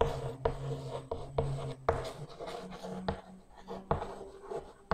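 Chalk writing on a chalkboard: irregular taps and short scratches as a line of words is written out.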